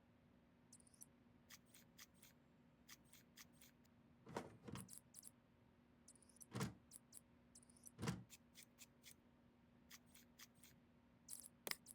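Quiet, scattered small clicks and a few light knocks of computer hardware being handled during assembly, over a faint steady hum.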